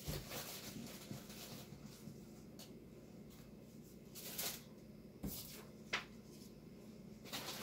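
Quiet handling of paper and a sheet of thick cardboard on a table, with a few brief rustles and light taps.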